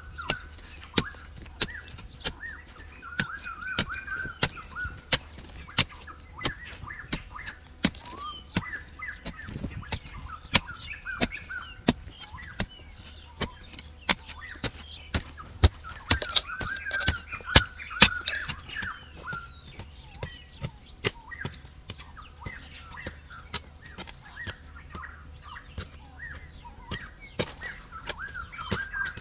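Hand hoe striking and chopping into dry, clumpy soil, with repeated sharp strikes at an uneven pace, while birds chirp continuously in the background.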